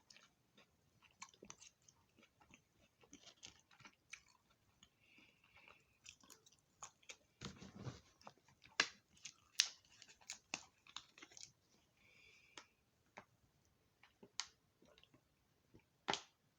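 A person chewing food close to the microphone: soft wet mouth clicks with occasional crunches, loudest about halfway through.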